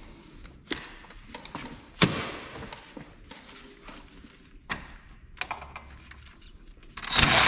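Metal knocks and clunks as a DeWalt cordless impact is set against the brake caliper bolts, then, near the end, a short loud run of the impact spinning out a caliper bolt that has already been broken loose.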